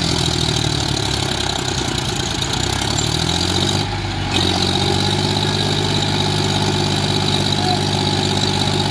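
John Deere tractor diesel engines running hard as a tractor works through soft sand. The engine note shifts about two to three seconds in, dips briefly near four seconds, then settles into a steady drone.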